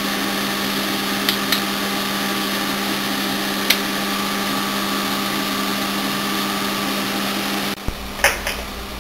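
High-voltage power supply running, a steady buzz with hiss, driving current through a plant leaf to light a discharge tube. A few sharp clicks come in the first four seconds, and the sound drops away about eight seconds in.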